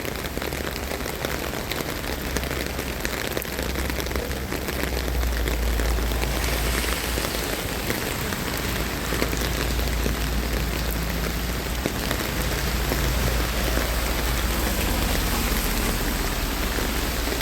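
Heavy rain pouring down and splashing on hard surfaces, a steady dense hiss, with a constant low rumble underneath.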